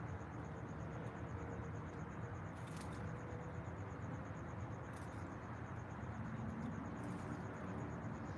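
An insect, cricket-like, trilling in rapid, even high-pitched pulses without pause, over a steady low rumble of outdoor ambience.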